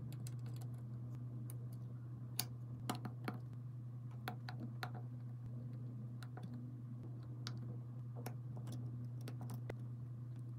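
Light, irregular clicks and taps of small repair tools on an iPhone's parts, over a steady low hum.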